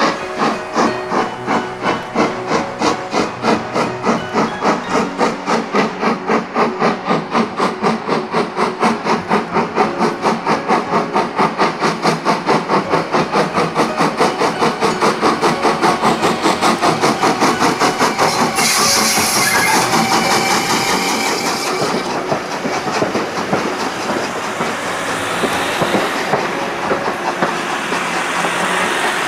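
Steam locomotive working hard, its exhaust beats coming evenly and quickening slightly as it gets under way. About eighteen seconds in, a burst of steam hiss lasts a few seconds, then the train's steadier running noise takes over.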